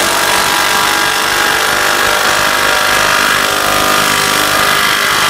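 Klein BAT20-CD brushless impact driver hammering steadily and without a break as it drives a large lag bolt with a 3/4-inch head into wood with no pilot hole, the tool working under heavy load.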